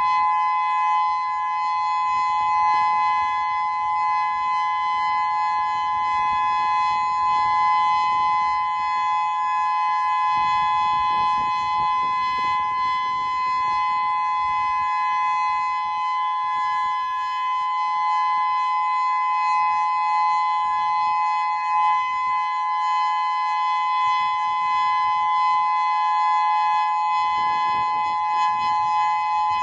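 Federal Signal Modulator II electronic siren sounding its steady Alert signal, a full-alert test. Two pitches sound together and hold level throughout, with no rise or fall.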